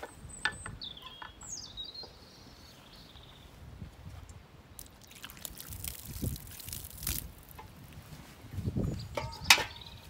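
Liquid being poured and dripping, with scattered clicks and knocks of handling and a sharp clink about nine and a half seconds in.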